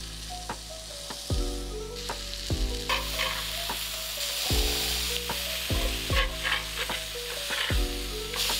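Beef-and-bacon burger patties sizzling and frying in a hot cast-iron skillet, growing louder about two seconds in, with a few scrapes of a metal spatula as the patties are turned.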